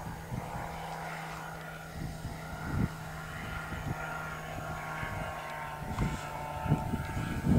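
Kolb ultralight's engine and propeller droning steadily as the plane flies past overhead, with irregular low thumps of wind on the microphone.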